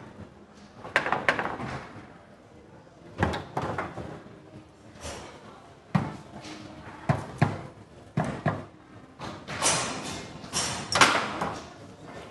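Foosball table in play: irregular sharp clacks and knocks as the ball is struck by the plastic men and bangs off the table, with rods knocking, about a dozen hits in all. The loudest come about a second in and again about eleven seconds in.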